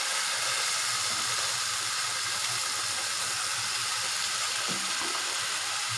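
Marinated chicken pieces sizzling with a steady hiss as they go into a hot pan of onion-tomato masala.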